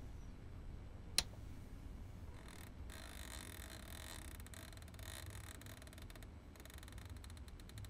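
A single sharp click about a second in, a press of a soft button on the Kurzweil PC3 synthesizer's front panel, over a faint low hum and hiss.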